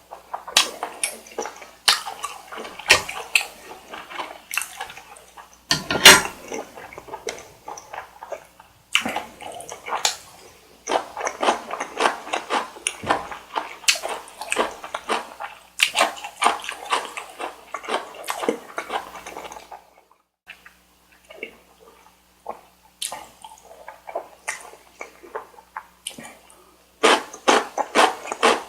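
Close-miked eating: wet, sticky chewing and mouth smacks on saucy carbonara Buldak noodles and chewy rice cake, in quick irregular clicks. They thin out for a few seconds about two-thirds of the way through, then come thick again near the end.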